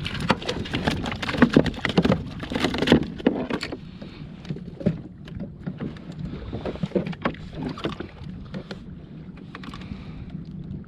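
Splashing, knocks and clicks as a fluke (summer flounder) is landed and handled aboard a kayak. They are busiest in the first few seconds, then thin out to occasional knocks.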